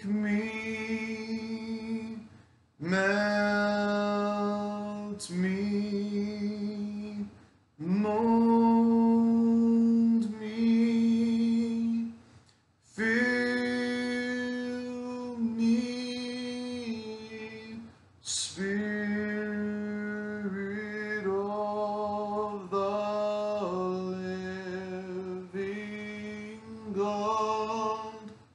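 A man singing a slow hymn solo and unaccompanied, holding long notes, with short breaks for breath between phrases every few seconds.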